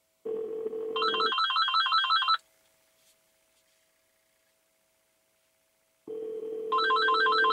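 Cordless phone handset ringing with an electronic warbling trill, twice, about six seconds apart. Each ring is overlapped by a lower steady tone, the ringback of the handsfree call coming through the car's audio, which starts just before the trill.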